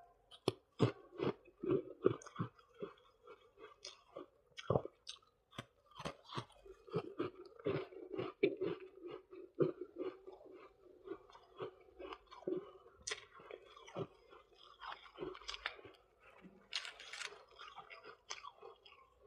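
Close-up chewing of white freezer frost: a dense, irregular run of crisp crunches, one bite after another.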